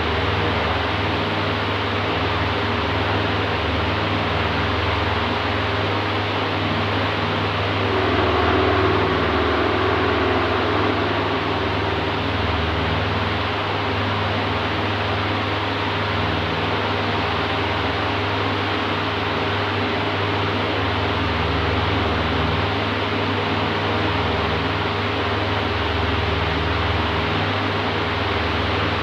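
Electric oscillating fan running with a steady rushing of air over a low motor hum, swelling slightly about eight seconds in as the head sweeps.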